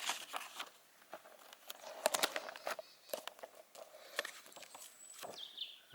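Soft rustles and scattered light clicks of a book's pages being handled and turned.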